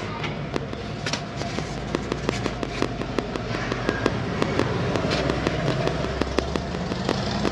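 Hot oil crackling and popping with many irregular sharp snaps, several a second, as bánh khọt (mini shrimp pancakes) fry, over a steady low street hum.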